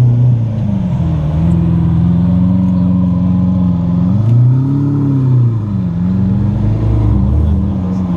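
A car engine running steadily. Its pitch steps up about a second in, and around the middle it gives one rev that rises and falls back.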